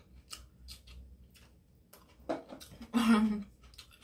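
Light clicks and taps of fingers handling food on a ceramic plate, then about three seconds in a short cough-like clearing of the throat, the loudest sound.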